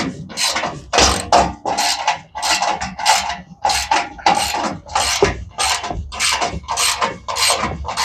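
Socket ratchet wrench being worked back and forth, its pawl clicking in quick runs about twice a second.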